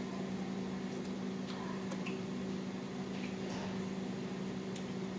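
Steady low hum of a running household appliance, with a few faint clicks of cutlery and hands on plates as people eat.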